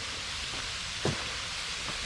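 Steady rushing of a waterfall pouring into a sinkhole, with a soft thump about a second in.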